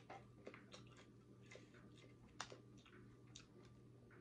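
Faint scattered crackles and ticks of crispy fried chicken breading being pulled apart by hand, with one louder crack a little past halfway.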